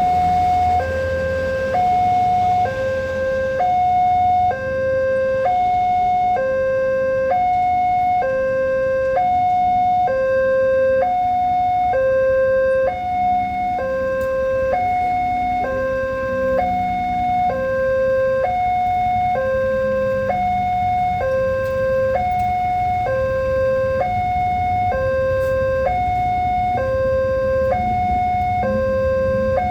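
Railway level-crossing warning alarm sounding its electronic two-tone hi-lo signal, the higher and lower tones swapping about once a second, steady throughout. It is the warning that a train is approaching and the gate is closing.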